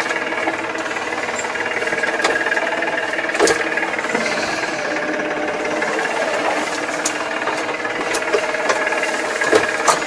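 Massey Ferguson tractor engine running steadily while driving, heard from inside the cab, with scattered clicks and rattles from the cab.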